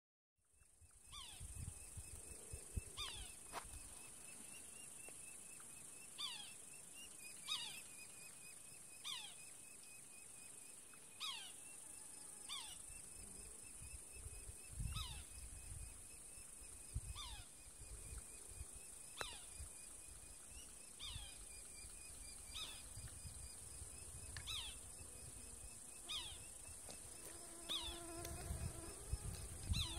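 Summer meadow insects droning steadily: a high continuous hiss-like buzz with a thinner steady tone beneath it. Short falling chirps repeat every second or two above the drone.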